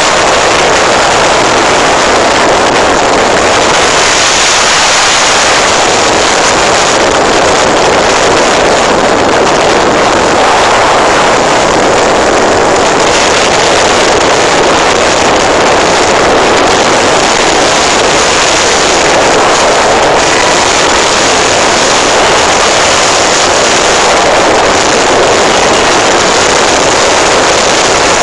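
Steady, loud rush of wind and rough sea heard from the open deck of a car ferry in choppy water.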